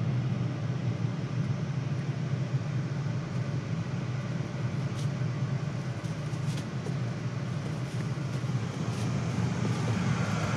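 Steady low hum of a car heard from inside the cabin, with a few faint clicks.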